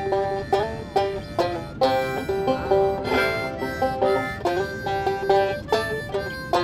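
Five-string banjo picked in a quick run of notes, with a harmonica playing along; a few notes slide in pitch.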